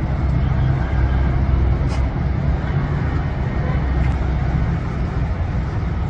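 Diesel engine of a large coach bus running with a steady low drone as it moves slowly along the road, amid general street traffic noise.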